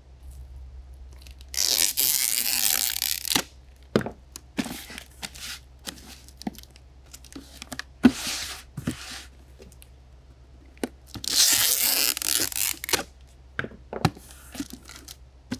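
Box-sealing packing tape pulled off a handheld tape dispenser and run along a corrugated cardboard box, a loud tearing screech about 2 s in and again about 11 s in, with a shorter strip near 8 s. Sharp clicks and knocks from the dispenser and hands on the box fall between them.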